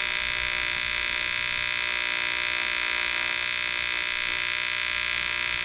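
AC TIG welding arc on aluminum, giving a steady, high-pitched electric buzz as a bracket tab is welded onto the frame.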